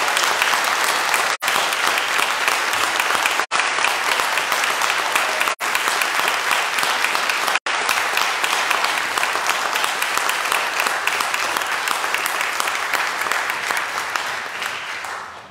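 Audience applauding steadily, fading out near the end. The recording cuts out for an instant four times.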